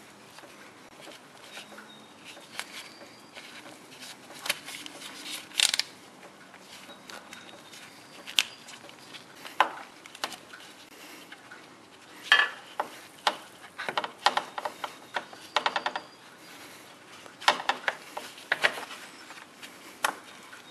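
Irregular clicks, taps and light clinks of gloved hands working a hose clamp and transmission cooler line off a radiator fitting, with a busier run of quick clicks in the second half.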